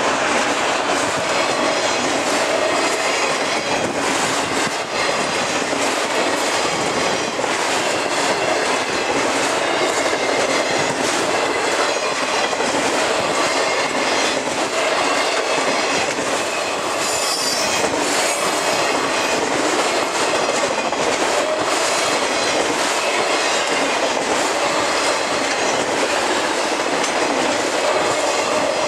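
Freight train of enclosed auto-rack cars rolling past close by: a steady loud rumble and rush of steel wheels on rail, with wheel clicks and thin wheel squeal, and a higher squeal briefly about 17 seconds in.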